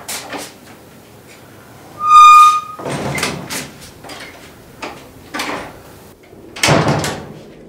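A house's front door being handled and swung shut: a loud, steady high squeak about two seconds in, a few knocks and rattles, then a heavy thud as it closes near the end.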